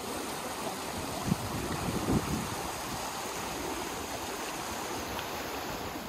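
Shallow river rushing steadily over a rocky bed, with a couple of brief low thumps.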